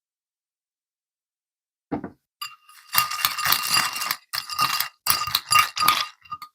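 Dry cereal poured into a bowl in several bursts, the pieces rattling against the bowl and setting it ringing faintly, after a single knock about two seconds in.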